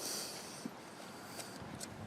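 Faint handling noise: light rustling with a few small clicks as parts of an opened-up orbital sander are handled.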